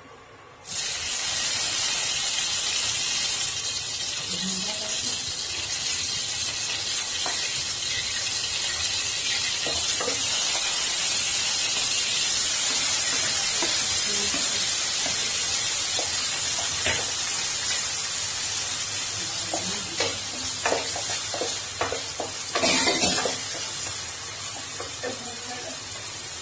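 Chopped tomatoes and green chillies dropped into hot oil in a nonstick pan, starting a loud sizzle suddenly about a second in that settles into a steady frying hiss, easing slightly toward the end. In the second half a wooden spatula stirs and scrapes the pan with scattered knocks, loudest a few seconds before the end.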